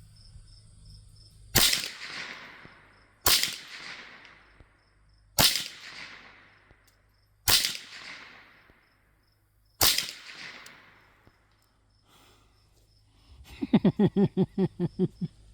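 Five shots from a Mendoza Puma .22 LR rifle, fired one at a time about two seconds apart, each cracking sharply and fading out. Near the end comes a short burst of rapid pulsing.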